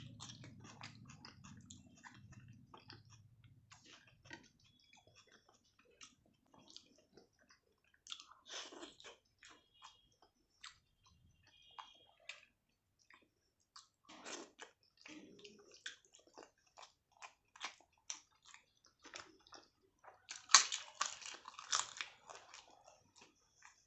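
Close-up eating sounds: wet chewing and mouth smacks of rice and egg curry, with scattered crunchy bites, and a louder run of crunching near the end.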